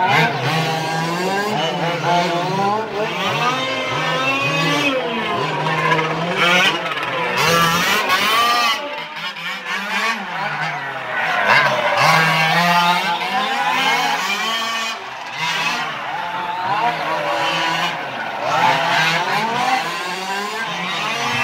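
Several 1:5-scale petrol RC cars' small two-stroke engines racing, revving up and down in overlapping rising and falling whines as they accelerate and brake around the track.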